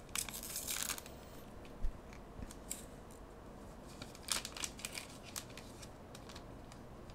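Trading cards being handled and flicked through: a quick run of crisp snaps and rustles in the first second, then scattered faint clicks, the clearest a little after four seconds in.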